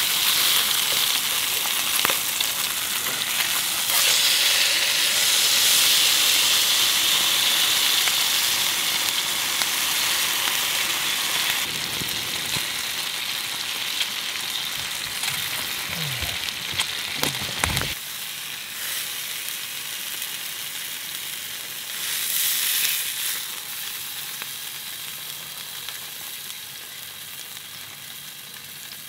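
Teriyaki-glazed king salmon fillet sizzling in a nonstick frying pan: a steady frying hiss that swells a few seconds in and then slowly dies down, with a few sharp clicks and knocks of tongs against the pan.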